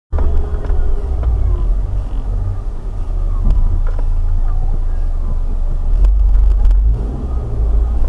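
Low, steady rumble of a car being driven, engine and road noise picked up inside the car by a dashboard camera.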